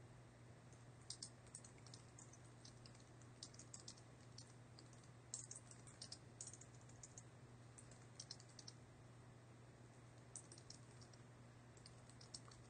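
Faint typing on a computer keyboard: short bursts of keystrokes with pauses between, over a low steady hum.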